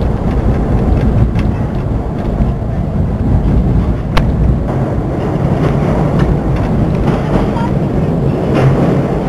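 New York City N subway train running along the track: a steady loud rumble of wheels on rails, broken by scattered clicks and a sharp click about four seconds in.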